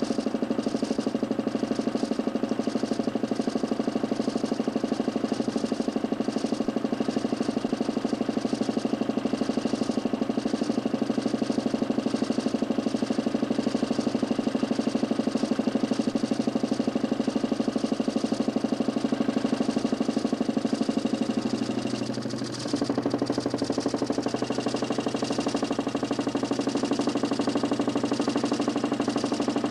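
DC motor spinning a 40cm plywood Nipkow disc, a steady whirring hum with a fast, even flutter. About 22 seconds in it briefly dips, and then it runs on at a slightly changed tone.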